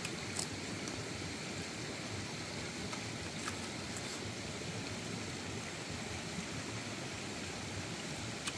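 Steady rushing background noise, with a few faint crunches as a raw cucumber is bitten and chewed.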